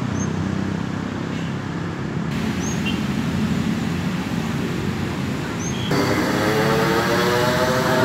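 Steady outdoor traffic noise with a few faint, short, high chirps over it. About six seconds in it cuts to a louder stretch with steady droning tones.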